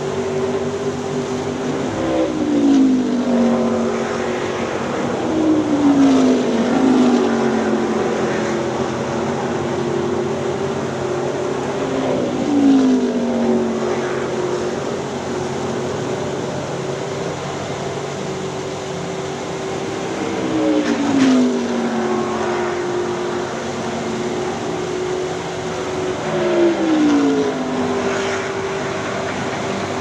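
NASCAR Cup cars' V8 engines running at speed on the track, several passing one after another with the pitch falling as each goes by, over a steady drone of cars farther around the circuit. A small waterfall splashes underneath as a steady hiss.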